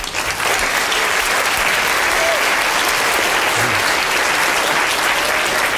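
Audience applauding steadily, many hands clapping at once, welcoming a volunteer called down to the stage.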